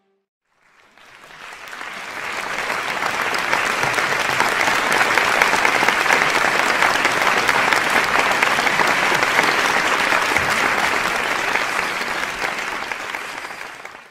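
Large audience applauding: a crowd's dense clapping that swells in over the first couple of seconds, holds steady, then cuts off abruptly at the end.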